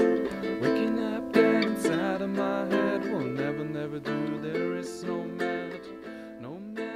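Guitalele (small six-string travel guitar) played by hand: plucked chords and picked notes ringing out, with a couple of sliding notes, growing quieter toward the end as it fades out.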